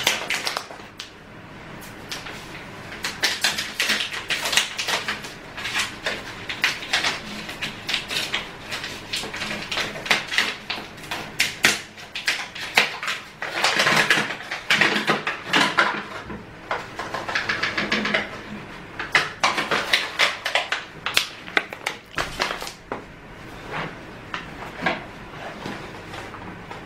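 Crinkling and rustling of a paper flour bag being handled and opened, heaviest about halfway through, among scattered clicks and knocks of things being picked up and moved.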